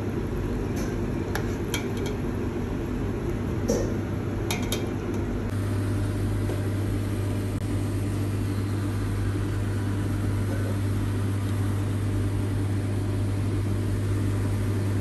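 A few light metal clinks of a steel ladle against the pot and plate over a steady mechanical hum in the first five seconds. About five seconds in, the hum turns deeper and stronger and runs on steadily without clinks.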